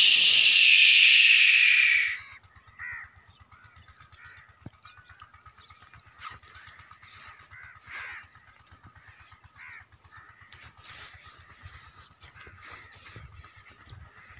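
Crows cawing now and then, faint short calls scattered over several seconds. It opens with a loud, high rushing sound that falls in pitch and cuts off about two seconds in.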